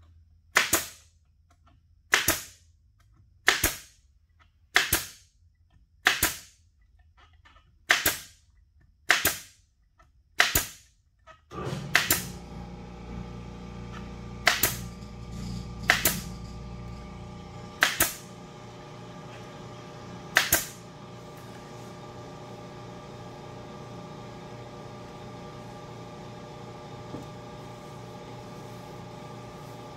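Staple gun firing staples through fake-leather upholstery into a console frame: thirteen sharp shots about one to two seconds apart, stopping about two-thirds of the way through. A steady machine hum with a low rumble comes on about twelve seconds in.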